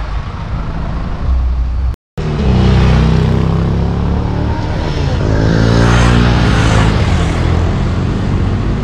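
Engines of road traffic running close by, with a vehicle passing near about six seconds in, its pitch dropping as it goes by. The sound breaks off for a moment about two seconds in.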